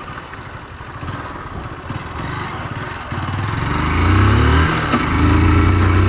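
Motorcycle engine running under way, with rough rumble and rushing noise for the first few seconds. About three seconds in, the engine pulls harder and louder with its pitch rising, breaks off briefly a little before five seconds in, then picks up again.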